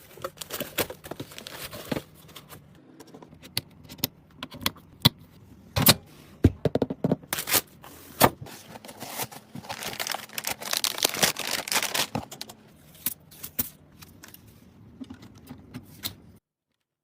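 Hands assembling a PC: a run of sharp clicks and knocks of parts being handled and fitted, with a longer stretch of scraping and rustling partway through. The sound cuts off abruptly shortly before the end.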